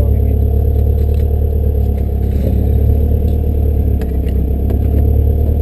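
Race car engine idling steadily, heard from inside the cabin, with a few faint clicks.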